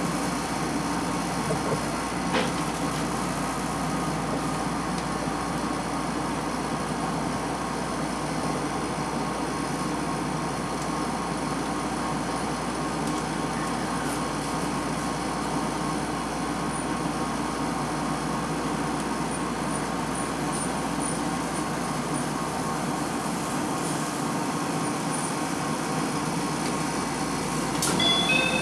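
Steady interior running noise of a Tama Monorail straddle-beam train heard from the passenger cabin: an even hum and rumble from the drive and the rubber tyres on the concrete guideway. Near the end a few high electronic tones begin to sound.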